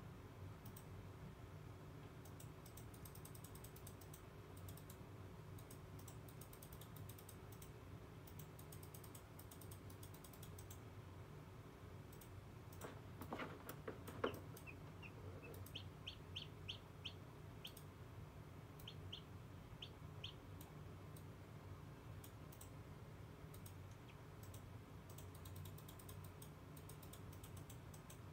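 Newly hatching chick in an incubator giving a run of short, high, faint peeps about halfway through, just after two or three soft knocks as it pushes against its shell. Faint rapid clicking comes at the start and near the end, over the incubator's steady low hum.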